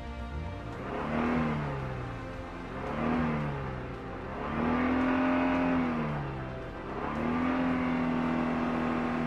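Car engine sound effect revving up and falling back four times, the last two revs longer and held.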